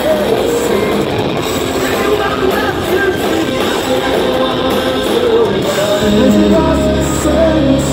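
Live rock band playing loud through a venue PA, with electric guitars, drums and singing, recorded from within the crowd. About six seconds in, the sound changes and a steady low bass comes in.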